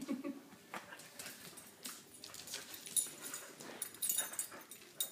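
Husky vocalizing while it tugs at a chew toy, with a low sound at the start and sharp knocks and clicks scattered throughout.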